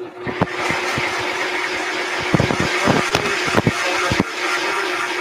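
Countertop blender switching on and running loud and steady, whizzing homemade Caesar dressing of egg yolk and oil together into an emulsion, with a constant hum under the whirring. A few sharp clicks cut through it around the middle.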